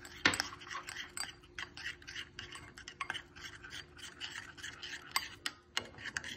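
A spoon stirring a thick honey mixture of turmeric, ginger, black pepper and lemon juice, scraping and clinking against the container in quick, irregular strokes.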